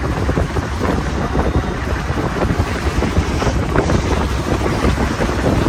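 Wind rushing over the microphone at the open side of a moving Tata Magic passenger van, with the van's engine and road noise beneath, steady throughout.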